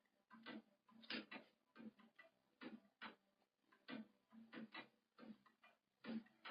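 Faint, short taps or clicks in an irregular run, about two a second.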